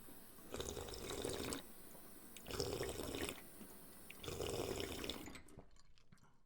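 Water splashing in three louder surges over a steady trickle, each surge about a second long. It then dies away into a few scattered drips near the end.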